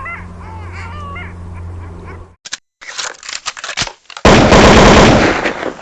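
Repeated bird calls over a steady low hum, cut off about two seconds in. Then scattered crackles, and about four seconds in a loud burst of noise lasting over a second.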